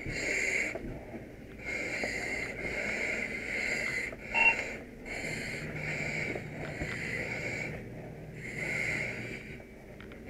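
A firefighter breathing through an SCBA facepiece regulator: a run of hissing breaths, about one a second. A short beep sounds about four and a half seconds in.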